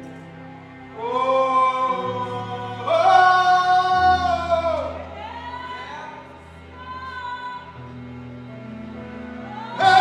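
Live gospel singing with accompaniment: voices hold long, swelling notes over sustained low chords, rising about a second in and loudest around three seconds, softer through the middle, then a loud full entry near the end.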